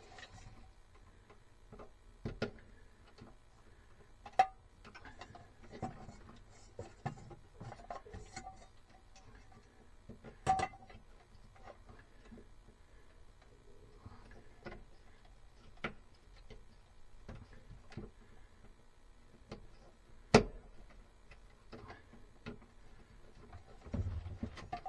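Scattered small clicks and taps of hand work disconnecting wires from a small terminal block, with a few sharper knocks about four, ten and twenty seconds in.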